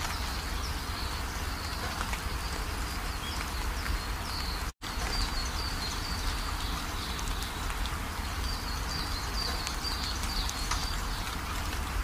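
Steady rushing hiss of water, like rain, over a low rumble, with a run of short high chirps repeating through it. The sound cuts out for an instant a little before halfway.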